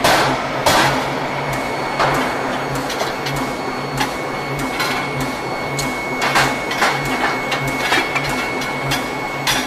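Power forging hammer striking a red-hot steel ring on the anvil, two heavy blows in the first second, then running between blows with a steady low pulsing beat about twice a second. Irregular lighter metal knocks and clanks follow as the hot ring is shifted with tongs and bars.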